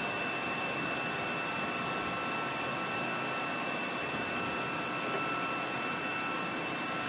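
Steady turbine whine: a constant high tone over an even rushing noise, from aircraft turbine machinery running on the flight line.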